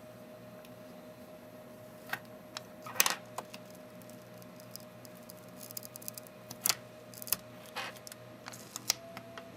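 Scattered small clicks and taps of tools and parts being handled on the work surface during an iPod Touch teardown, the sharpest about three seconds in, over a faint steady hum.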